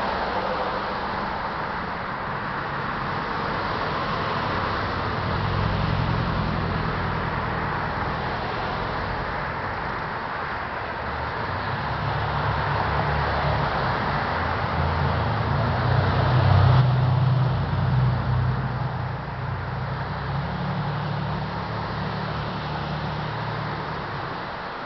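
Street traffic: cars driving past, a steady road noise with engine rumble swelling as vehicles go by, loudest about two-thirds of the way in.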